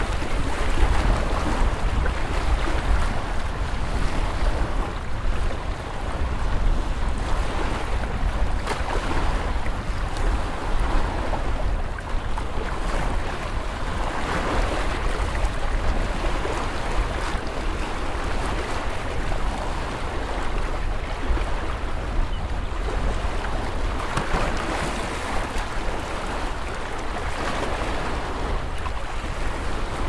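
Lake water lapping and washing against the shore in a steady, noisy wash that swells and eases every few seconds, with wind rumbling on the microphone underneath.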